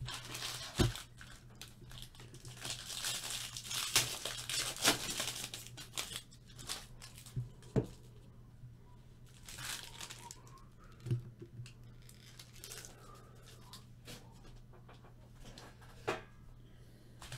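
Foil card-pack wrappers being torn open and crinkled, with several sharp clicks scattered through. The tearing is thickest in the first six seconds, over a faint steady low hum.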